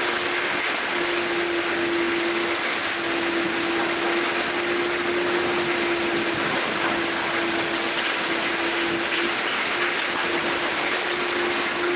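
Wet-dry shop vacuum running steadily: a constant rushing hiss with a steady hum underneath.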